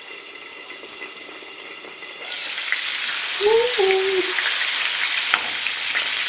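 Cornmeal-coated okra slices frying in vegetable oil, a steady sizzle that jumps much louder about two seconds in, with a few light clicks.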